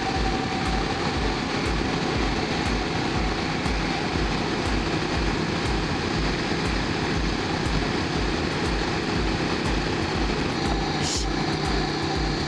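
KTM 790 Duke's parallel-twin engine running while riding, under a steady rush of wind noise. A short hiss comes about eleven seconds in.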